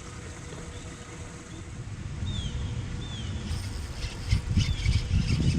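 A bird calling several times with short, falling whistled notes over a steady low rumble that grows louder about two seconds in.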